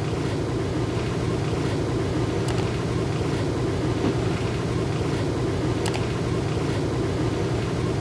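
Kenmore 70 series top-loading washer running its spin cycle: the motor and direct-drive transmission give a steady hum as the basket spins, with a few faint ticks. The spin shows that the newly replaced motor coupler is driving the transmission again.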